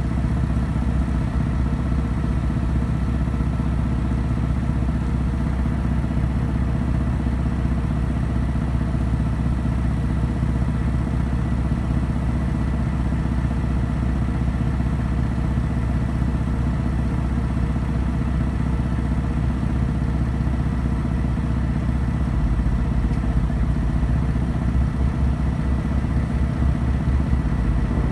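A motor running steadily at idle: a constant low hum with a thin steady high tone above it.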